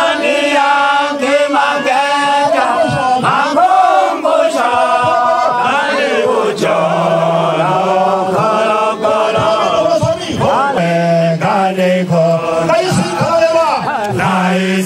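Sukuma folk song chanted by a male lead singer into a microphone, with a group of men and women singing along.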